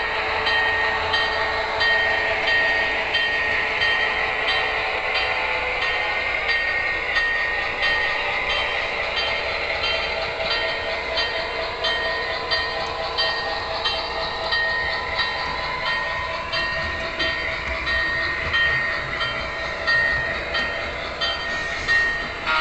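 Factory sound decoder of a Broadway Limited Blueline HO scale EMD F7 diesel locomotive model, playing recorded diesel engine and air horn sounds through the model's built-in speaker as it climbs a grade. The sound runs steadily, with a short high tone repeating through most of the stretch.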